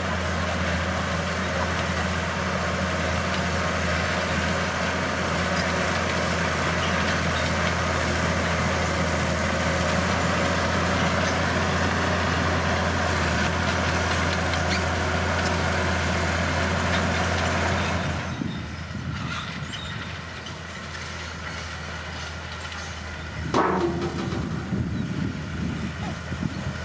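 Bulldozer diesel engine running steadily with a deep hum, dropping to a quieter run about two-thirds of the way through. Near the end comes a brief loud squeal that falls in pitch.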